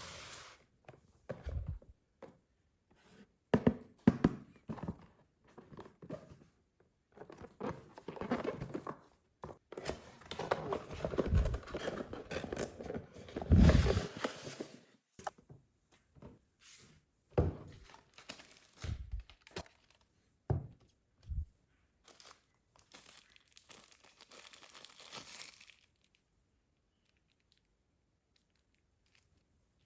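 Packaging being torn and crumpled, with plastic parts knocked and set down in scattered thuds.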